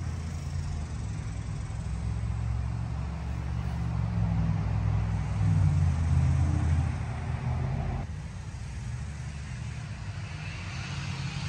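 A low, steady motor rumble that swells over the first several seconds and then drops off suddenly about eight seconds in.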